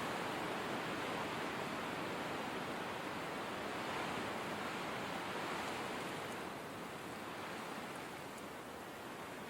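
Blizzard wind blowing as a steady, even rush of noise, easing a little about two-thirds of the way through.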